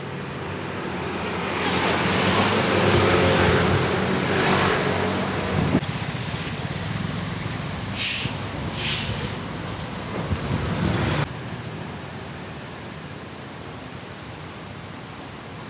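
City street traffic on wet roads: a motor vehicle's engine passes close by, loudest a few seconds in, over a steady wash of tyre and rain noise. Two short hisses come about eight seconds in, and the sound drops abruptly a little after eleven seconds, leaving a quieter steady hiss.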